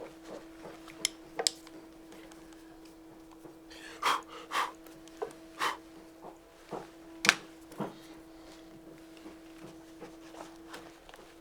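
Scattered light clicks, taps and short scrapes of small hand tools working on a wooden painted panel, the sharpest tap about seven seconds in, over a steady low hum.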